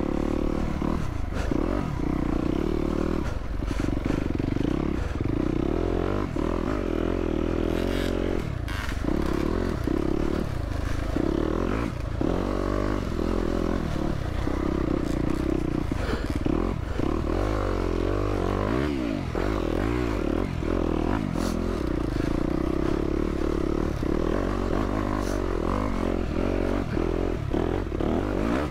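Yamaha YZ250F's 250 cc four-stroke single-cylinder engine, with its revs rising and falling constantly as the throttle is worked through tight, slick single track. Scattered knocks and clatter from the bike run through the engine note.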